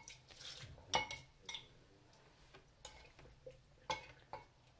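Glass bowl clinking against a glass blender jar as date soaking water is poured in: several short, sharp clinks about a second apart.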